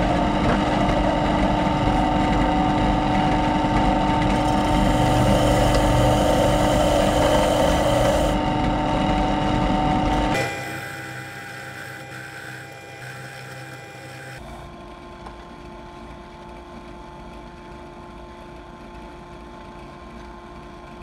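Bench drill press running with a wire cup brush in the chuck, a steady motor hum with a loud rushing, scraping noise for about the first ten seconds. It then drops suddenly to a quieter, steady run.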